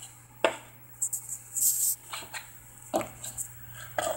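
Handling noise: a few scattered knocks and taps and a brief rustle as equipment is moved about, over a steady low electrical hum.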